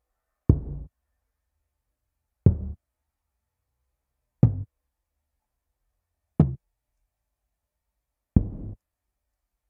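Pitched-down tom drum sample, a low bass-tom hit played once every two seconds, five hits in all, with its pitch transposition changed between hits so the hits differ in pitch and length; the fourth is the shortest.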